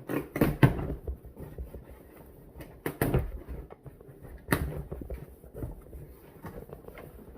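A cardboard shipping box being handled and opened: a few sharp knocks and thumps, about half a second in, at about 3 seconds and at about 4.5 seconds, with crackling and rustling of packaging between them.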